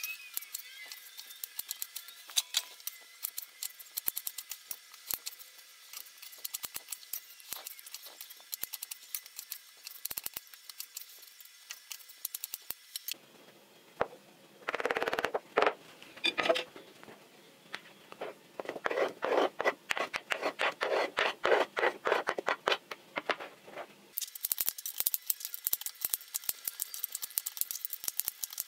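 A knife chopping pears on a wooden cutting board: a long run of quick, sharp knocks. In the middle come two stretches of faster, louder, dense strokes, a whisk working in a bowl. Near the end the knife is chopping walnuts on the board.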